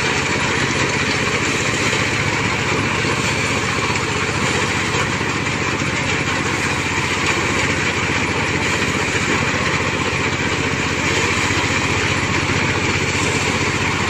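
Mini combine harvester's engine running steadily.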